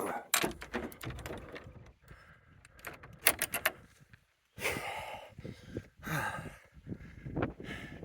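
Outhouse door being handled: knocks and clicks as it opens and shuts, with a quick run of rattling clicks about three seconds in, then stretches of rushing noise.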